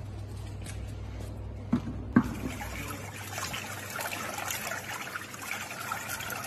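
Water running from a hose into a plastic container, filling it: the output of an atmospheric water generator. Before it, a steady low hum and two sharp knocks about two seconds in.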